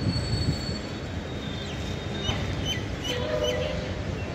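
Freight train of flat wagons rolling past, with a steady low rumble of wheels on rail joints. A thin high squeal sounds in the first second. Short high chirps come through the middle.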